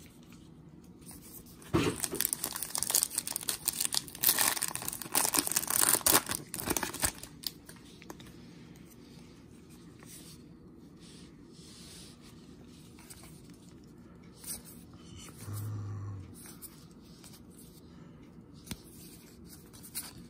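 Trading-card pack wrapper being torn open and crinkled for about five seconds, starting about two seconds in. After that come only soft, scattered rustles of the cards being slid apart and flipped through by hand.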